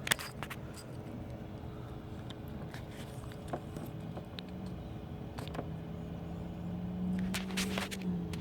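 Scattered light clicks and knocks of hands working an unplugged wiring connector and test leads. A steady low hum fades in about four seconds in and grows louder near the end.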